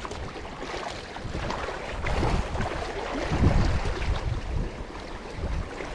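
Wind gusting across the microphone, a low uneven rumble that swells and fades, loudest about halfway through.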